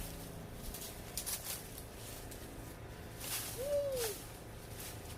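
Cut leafy branches rustling in a few short bursts as they are handled. About three and a half seconds in, a bird gives a single short call that rises and then falls.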